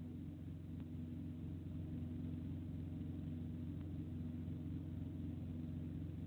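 A steady low hum, with two faint clicks about three seconds apart.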